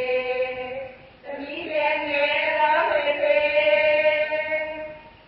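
Voice chanting a slow, melodic Burmese Buddhist verse in long held notes: a short phrase ending about a second in, then one longer phrase that fades near the end.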